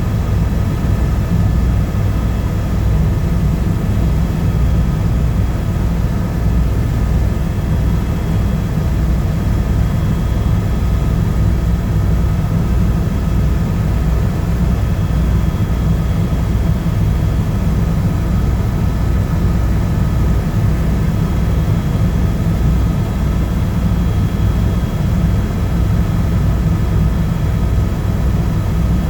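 Eurocopter EC130 helicopter in flight, heard from inside the cabin: a fast, even low beat from the rotor under a steady turbine whine, constant throughout.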